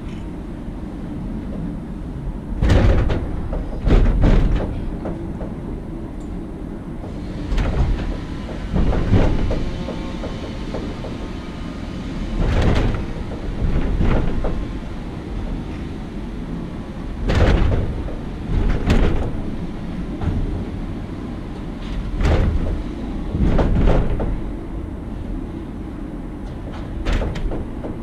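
Funicular car running uphill on its track: a steady low rumble with pairs of loud clunks that come round about every five seconds.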